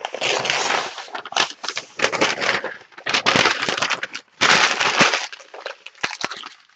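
Protective paper wrapping being pulled off a radiator and crumpled: loud, irregular crinkling in several bursts.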